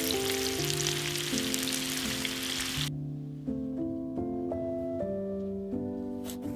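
Sliced onions sizzling in a frying pan, cutting off abruptly about three seconds in, over background music that continues throughout.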